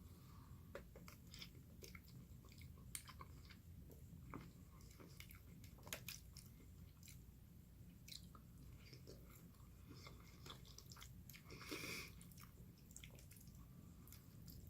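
A person chewing and biting food close to the microphone, with scattered wet clicks and smacks of the mouth, and one longer, louder mouth noise near the end.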